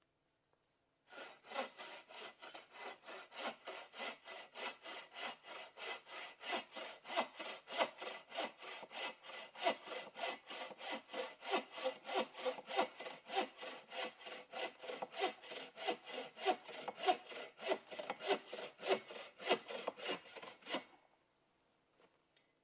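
Hand saw cutting through wood in quick, even strokes, about three a second, for about twenty seconds; it starts about a second in and stops near the end.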